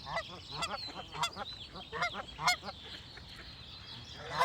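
Geese honking: a quick series of short, nasal honks through the first two and a half seconds, then one more loud honk near the end. Songbirds sing steadily and high in the background.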